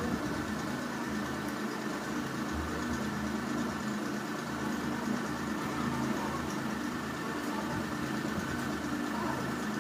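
A steady low machine hum with a constant hiss, unchanging throughout, like a running motor.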